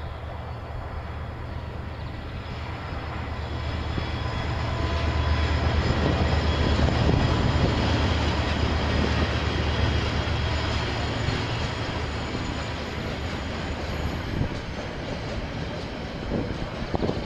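Diesel-hauled train passing: a steady low engine hum with wheel-and-rail noise that grows louder to its peak about six to eight seconds in, then slowly fades.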